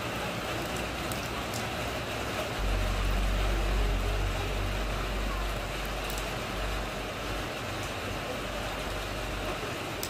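Steady rain falling and splashing onto wet ground and puddles. A low rumble swells in about three seconds in and fades away over the next few seconds.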